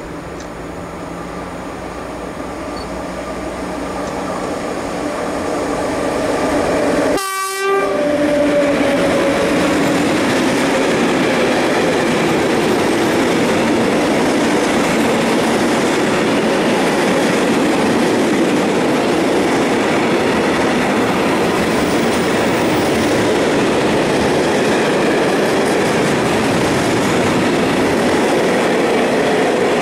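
ET22 electric freight locomotive approaching and growing louder over the first several seconds, with a short horn blast about seven seconds in. A long train of pressurised gas tank wagons then rolls steadily past close by.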